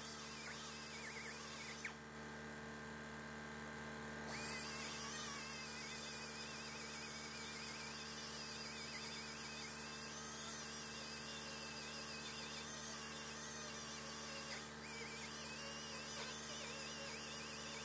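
A small power grinder running steadily on welded sheet metal, its high whine wavering in pitch as it bears on the metal while the weld beads on the patch are ground down.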